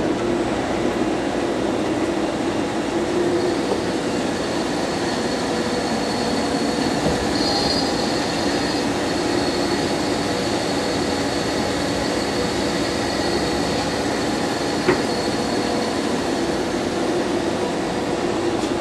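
Machine tool running a metal-cutting pass: a steady mechanical hum with a thin high whine over the middle part, and a single sharp click late on.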